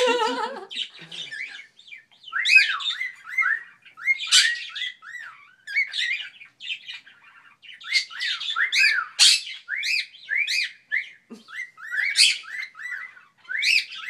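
Cockatiel chirping in quick runs of short up-and-down notes, with a few louder, harsher squawks among them.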